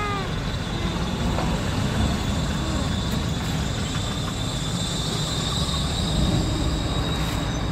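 JCB backhoe loader's diesel engine running, a steady low rumble with a thin, steady high whine over it.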